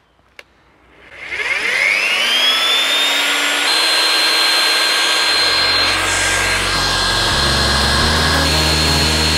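Motor of a powered ground-screw driver spinning up with a rising whine, then running steadily as it turns a steel ground screw into the soil. Background music comes in about halfway through.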